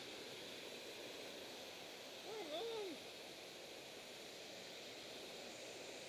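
Steady rush of a small waterfall and rocky stream, with one short wavering call about two seconds in that rises and falls in pitch.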